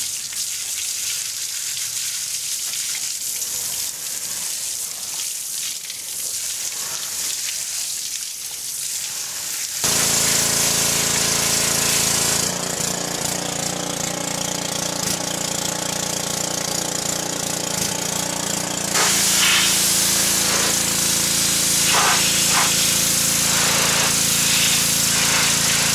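Pressure-washer jet hissing and spattering against a heavy truck's rear wheel hub and brake assembly, washing out brake dust and grime. About ten seconds in it gets louder, and a steady engine-like drone from the washer's motor runs beneath the spray.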